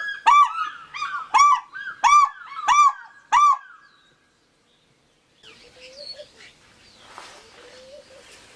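African fish eagle calling: a loud series of about six ringing yelps, each note rising and falling in pitch, about 0.6 s apart. After a short silence, faint chirps of small birds follow.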